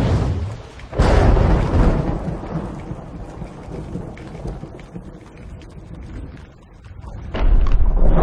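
Thunderstorm: a loud thunderclap about a second in, its deep rumble fading over several seconds with rain, then another heavy rumble of thunder breaking near the end.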